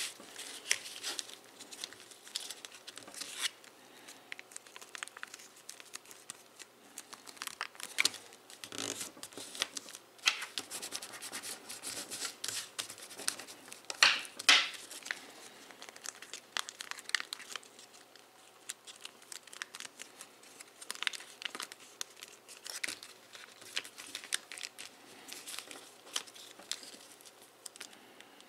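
Origami paper crinkling and rustling under the fingers as it is folded and creased, in irregular bursts with sharper crackles, the loudest about fourteen seconds in.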